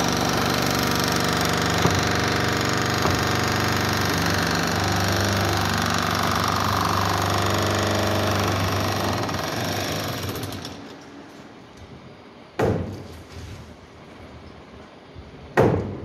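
Loud, steady machine noise with a constant hum that fades out after about ten seconds. Then come two sharp blows about three seconds apart: a pickaxe striking brick rubble during hand demolition.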